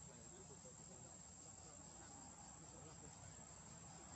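Faint, steady, high-pitched insect drone, a cricket-like chirring, over a low background rumble.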